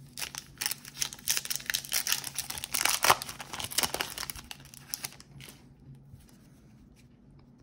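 The wrapper of a 2021 Topps baseball card pack crinkling and tearing as it is ripped open: a dense run of crackles for about five seconds that then dies down.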